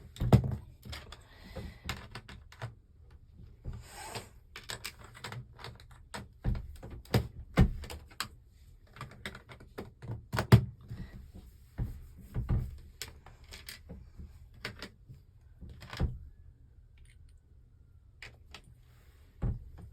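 Lego pieces being handled: irregular plastic clicks, taps and knocks as pieces are picked up, set down and pressed together, thinning out near the end.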